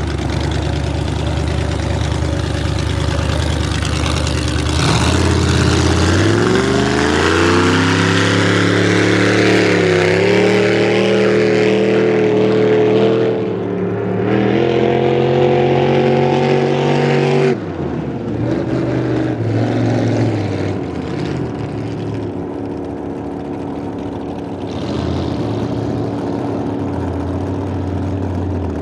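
A v-drive boat's engine running and being revved: the revs climb about five seconds in, are held up with a brief dip, rise again, then drop back sharply about two-thirds of the way through and it runs at a lower speed to the end.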